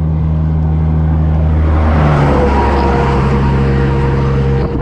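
A truck passing close by at highway speed: its engine drone and the rush of tyres and air build to a peak about two seconds in, and the engine's pitch drops as it goes past.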